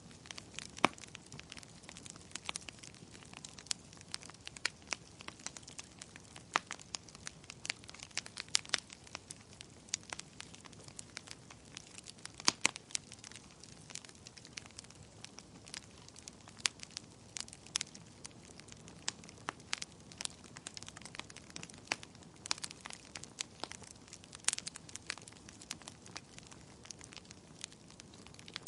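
Fire crackling in a fireplace: irregular sharp pops and snaps over a soft steady hiss, with a few louder pops scattered through.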